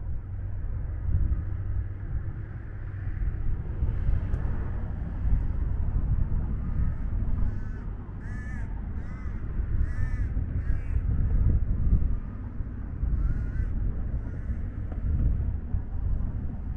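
A bird calling repeatedly in short, arched calls, in a series from about seven seconds in, over a steady low rumble.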